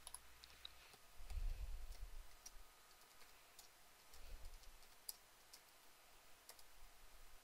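Faint computer mouse clicks and keyboard keystrokes, a few scattered taps at a time. There is a low, dull bump about a second in and a smaller one about four seconds in.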